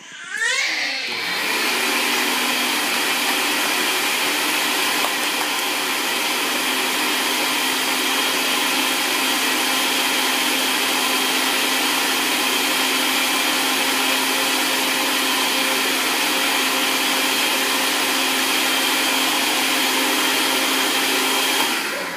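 Inexpensive countertop blender starting up with a rising whine, then running steadily, blending a smoothie of frozen strawberries, frozen banana, apple juice and romaine lettuce. It stops near the end.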